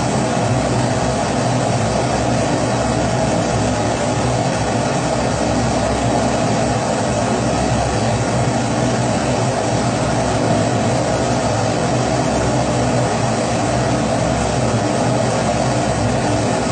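Pressurised kerosene stove of the Primus type burning with a steady, unchanging rush of flame and a low hum underneath.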